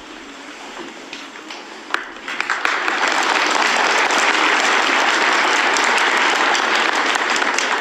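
Audience applauding, starting faintly and swelling to a full, steady round of clapping about two seconds in.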